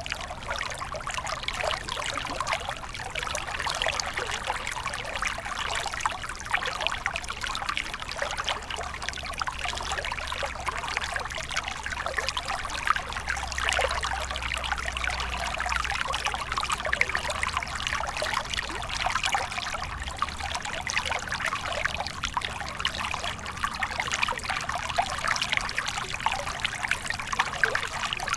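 Shallow stream water running over bed rocks in a moderate current: a steady, busy trickling and gurgling with a faint low rumble underneath.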